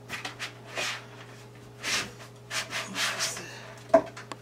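Cutting boards being shuffled and slid against one another: several short rubbing scrapes, then a sharp knock about four seconds in.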